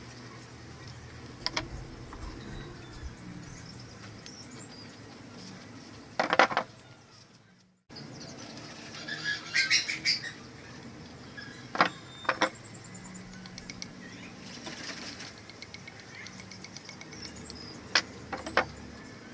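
Blue PVC pipes and elbow fittings being handled and pushed together on a bench: scattered sharp plastic clicks and knocks. The loudest clatter comes about six seconds in, with more pairs of clicks later on.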